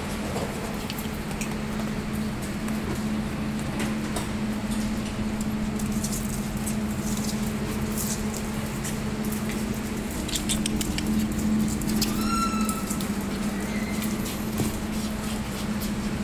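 Small dogs' claws patter and click on a wooden floor over a steady low hum. About twelve seconds in, one dog gives a short high whine.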